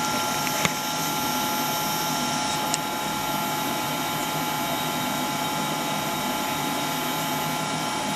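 Steady mechanical running noise from lab equipment: an even whir with two constant high whining tones, and a sharp click about a second in.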